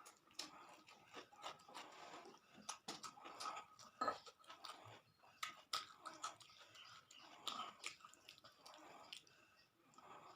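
A person chewing food close to the microphone: faint, irregular wet mouth smacks and small clicks.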